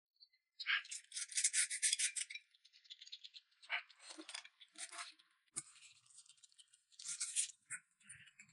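Eating sounds: noodles slurped and food chewed in several short bursts, the longest between about one and two seconds in, others around four to five seconds and near seven seconds.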